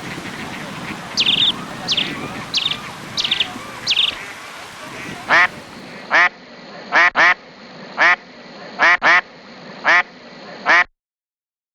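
Birds calling: first a run of five short, high calls, then eight louder, fuller calls about a second apart. The sound cuts off abruptly shortly before the end.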